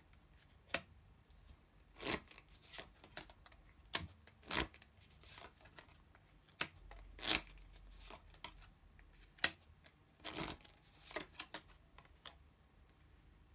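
Oracle cards being handled on a table: short, separate slides and taps of card on card, coming at irregular intervals.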